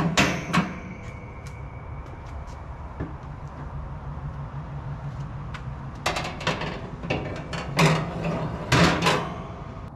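Metal cooking grates and other parts of a wood pellet smoker grill being set back in place: clanks and rattles at the start and again in a cluster about six to nine seconds in, with a steady low hum between.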